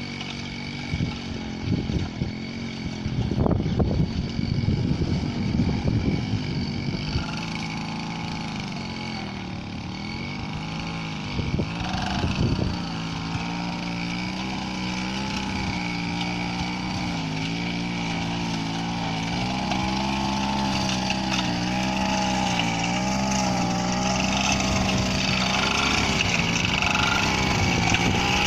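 Small 30cc engine driving a rice-paddy power weeder, running steadily with its pitch wavering slightly under load. Irregular low thumps and knocks sound over it during the first several seconds and again briefly near the middle.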